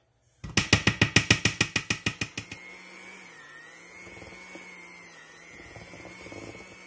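Electric hand mixer beating stiff cookie dough in a steel bowl: a rapid clatter of about eight knocks a second for the first couple of seconds, then a steady motor hum whose pitch dips briefly a little after three seconds in.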